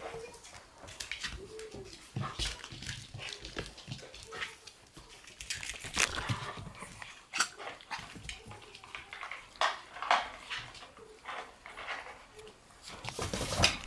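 Shiba Inu puppy giving a short high whine about a second and a half in, among many scattered clicks and taps.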